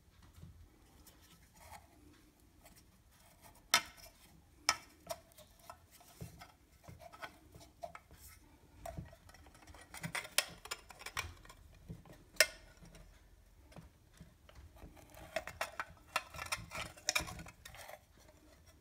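Sharp clicks and light metallic clinking as a recessed ceiling downlight fitting and its lamp holder are handled, coming in scattered taps and two clusters of rapid clicks.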